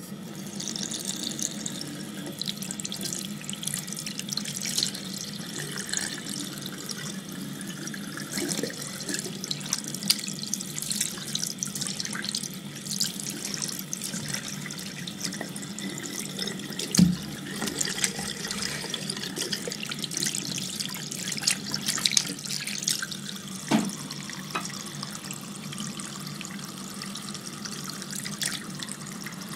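Water running from a bathroom tap into a sink, splashing as a hand is rubbed under the stream. The water starts at the beginning, and a sharp knock comes a little over halfway through, with a smaller one later.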